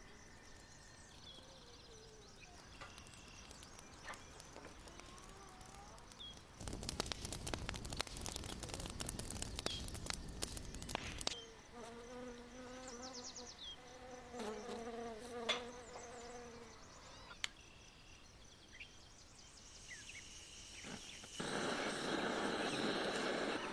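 A fly buzzing close by in two passes, with small birds chirping in the background. Before the buzzing comes several seconds of dense crackling clicks, and near the end a steady rushing noise starts.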